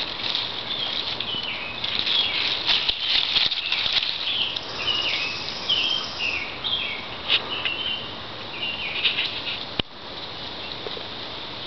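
Rustling and snapping of leafy weeds as a goat browses through them, with irregular crackles. Over it a bird chirps a run of short falling notes, and there is a sharp knock near the end.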